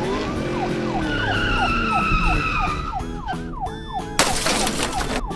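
Police car siren in a fast yelp, wailing up and down about three times a second over background music, with a second, slowly falling siren tone from about one to three seconds in. Near the end a loud burst of noise cuts across it for about a second.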